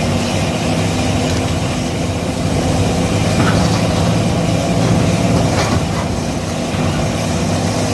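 Heavy engine of a grapple excavator running steadily, a low even drone.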